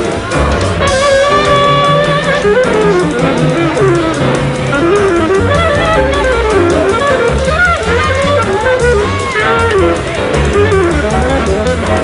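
Jazz music: a fast, winding lead line over a steady low bass, with light cymbal taps.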